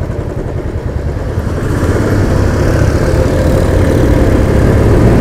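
Royal Enfield Classic 350's single-cylinder engine running under way, growing louder from about two seconds in.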